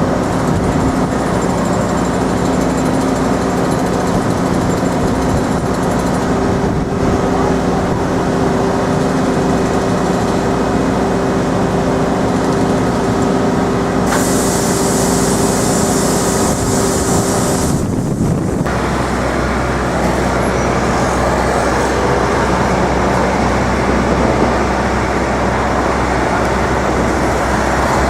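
City street traffic with the steady hum of a heavy vehicle's engine running close by. A loud hiss cuts in for about three seconds midway, and a different low engine hum carries on after it.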